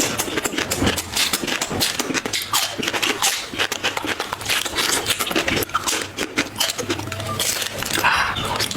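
Close-miked eating sounds: a person chewing and slurping flat rice noodles (hor fun), a dense run of wet clicks and smacks.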